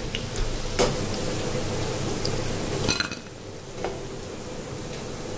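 Hot oil sizzling in a pan as deep-fried potato pakoras are lifted out with a perforated metal skimmer, with a few sharp metal clinks of the skimmer against the pan and bowl. The sizzle drops lower about three seconds in.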